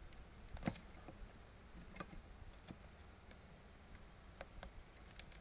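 Faint, irregular clicks and light knocks from beehive equipment being handled, about half a dozen spread over a few seconds.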